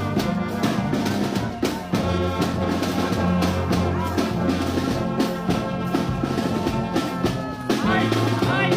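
Brass band playing, with long held low brass notes under the melody and regular drum strikes.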